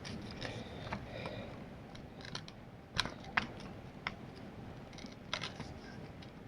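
Scattered small clicks and light scraping from hands and a tool working a plastic ball socket on the carburetor's throttle linkage of a nitro RC engine, the sharpest click about three seconds in.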